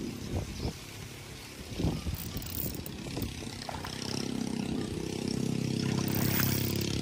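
A steady low motor hum, engine-like, that grows louder over the second half. Over it come a few short splashes as a large hooked barramundi thrashes at the surface near the bank.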